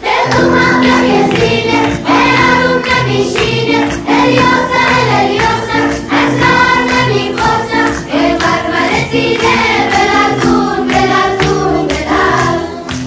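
Background music: a song with several voices singing together.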